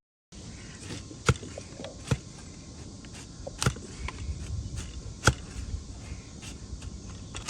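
Five sharp, hard clacks from a donkey's hooves, irregularly spaced about a second or more apart, over a steady background hum.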